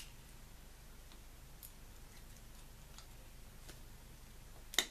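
Small side cutters and pliers working a thin metal relay contact plate: scattered faint clicks, then a sharper double click near the end as the cutters bite into the plate.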